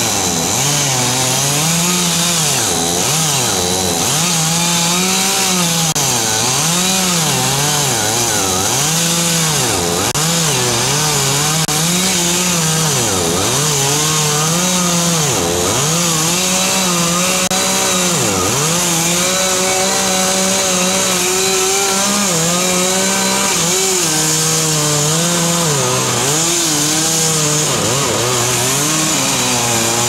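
Two-stroke chainsaw cutting into the base of a large tree trunk at full throttle. Its engine pitch dips and recovers every second or so as the chain bites under load.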